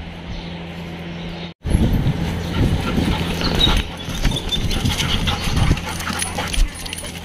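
A steady low hum, then, about a second and a half in, a sudden change to dogs whimpering over a busy run of short knocks and scuffles.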